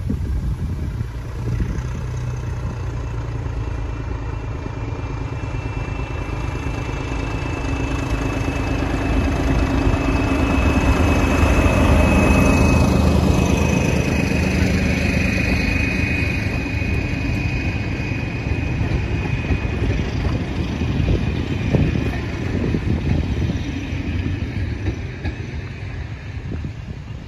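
BR Class 14 diesel-hydraulic locomotive D9526 working past. Its engine and wheels grow to loudest about twelve seconds in and then slowly fade, with a steady high whine over the rumble in the middle stretch.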